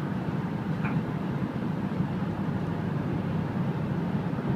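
Steady cabin noise of a Corvette cruising at highway speed, about 67 mph: a low engine drone under tyre and wind noise.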